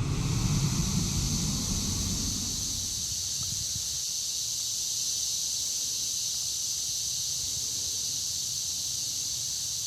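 A steady, unbroken chorus of periodical (17-year) cicadas, a dense high-pitched drone, with a low rumble underneath that fades out in the first couple of seconds.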